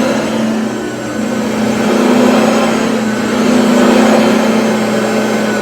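Cordless stick vacuum running steadily with a loud motor hum, its level swelling and dipping slightly as it is worked.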